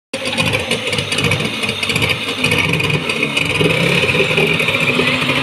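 Suzuki DT30 two-stroke outboard motor running steadily with its lower unit in a water-filled test barrel, the propeller churning the water.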